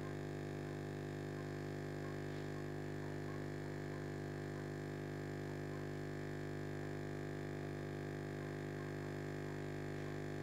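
Steady electrical hum of aquarium equipment, the air pump driving the tank's bubbler, running evenly with no change.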